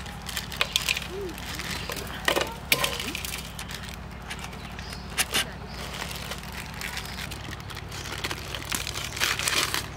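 Plastic instant-noodle packets crinkling and tearing as they are opened, with dry noodle blocks set down on a steel tray: a string of short, sharp crackles and taps, busiest near the end.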